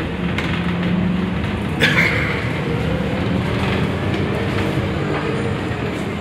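Cabin noise of a Scania articulated bus under way: a steady engine and road drone with rattling from the body. One sharp knock about two seconds in.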